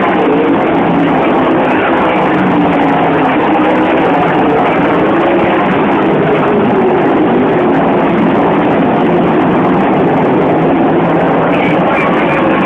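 A field of sprint cars racing on a dirt oval, their V8 engines running loud and constant, many engine pitches overlapping and rising and falling as the cars circle the track.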